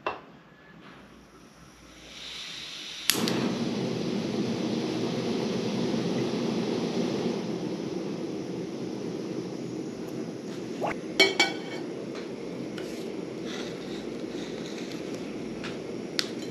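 Portable camping gas stove: gas hisses faintly, then a sharp click about three seconds in as the burner lights, and the flame burns with a steady low roar. A few metallic clinks come about eleven seconds in.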